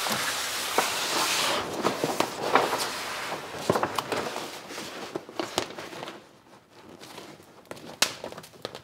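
A large sheet of vinyl boat wrap being handled and lined up, rustling and crinkling with many sharp crackles. It is loudest in the first couple of seconds and quieter after about six seconds.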